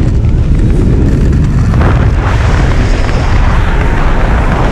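Wind buffeting the microphone of a camera on a tandem skydive descending under an open parachute: a loud, steady low rumble.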